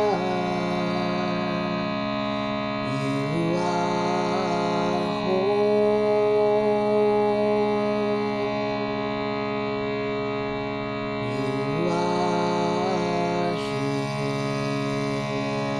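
Meditation drone of many sustained, steady tones from overtone-rich instruments. A wordless voice sings a sliding, chant-like line over it twice, about three seconds in and again near twelve seconds.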